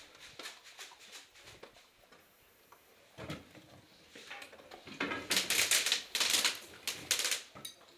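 Airsoft guns firing in rapid bursts, a dense clatter of sharp clicks, sparse at first and then much louder and faster about five seconds in.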